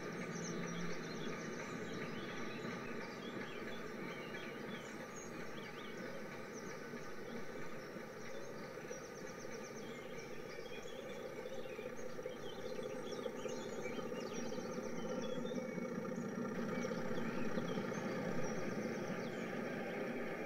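Trackside railway ambience: a steady rumble of passing rail traffic with birds chirping and trilling over it, swelling louder near the end.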